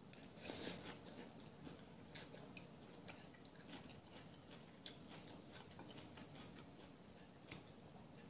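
Faint, close-up chewing and mouth sounds of a person eating, with small irregular wet clicks. There is a louder bite about half a second in and a single sharp click near the end.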